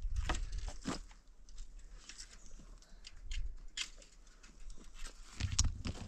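Stones being set down and shifted on chicken wire laid over dirt, making scattered scrapes, clicks and knocks, with heavier footfalls on stony ground near the end.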